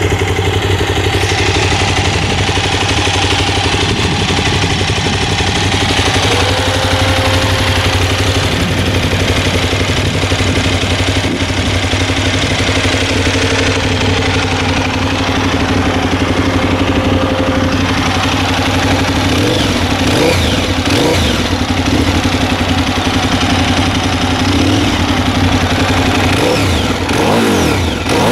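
KTM 990 Super Duke R's 999 cc V-twin running at standstill through its under-seat exhaust, idling steadily at first. From about two-thirds of the way in it is revved repeatedly, the pitch rising and falling with each throttle blip.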